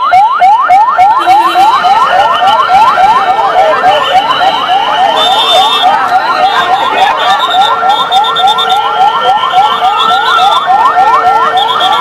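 Several vehicle sirens sounding at once: a fast rising yelp repeating about four times a second, overlapped by slower rising-and-falling wails and a steady high tone.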